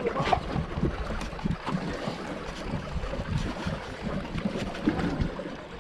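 Wind buffeting the microphone aboard a small boat at sea, a rough, uneven rumble with irregular gusty pops.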